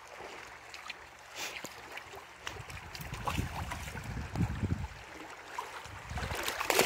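Shallow river running and rippling over rocks, with irregular low rumbles partway through and again near the end.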